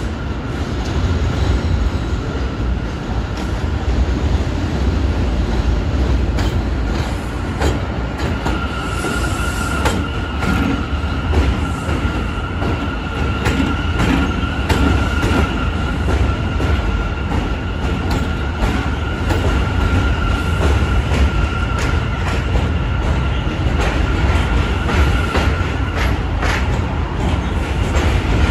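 A New York City Subway J train arriving along an elevated steel line and pulling into the station. It makes a steady heavy low rumble with rail-joint clicks, and a steady high-pitched whine from about eight seconds in until near the end.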